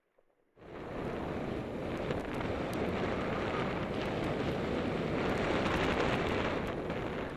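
Wind rushing over the microphone of a mountain bike's camera at downhill speed, with tyres and the bike rattling and clicking over a rocky dirt trail. It starts abruptly about half a second in and stays loud and steady.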